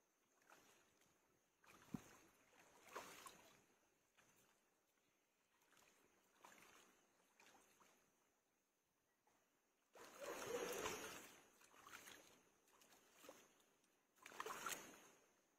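Shallow water splashing and sloshing as hands scoop it up and pour it over a body, in short irregular bursts, the loudest about ten seconds in and again near the end.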